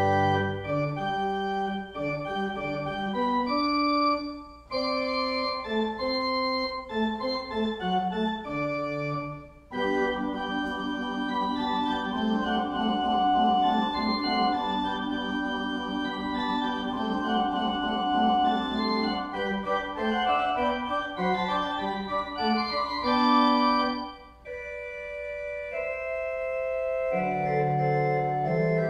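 Pipe organ playing slow, sustained chords, starting suddenly, with short breaks between phrases about four, nine and twenty-four seconds in.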